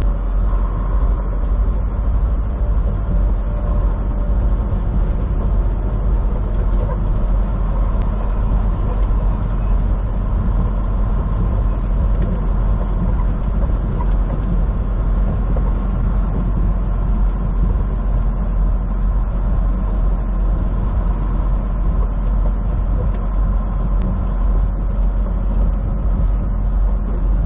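Semi truck's diesel engine and road noise droning steadily inside the cab at cruising speed.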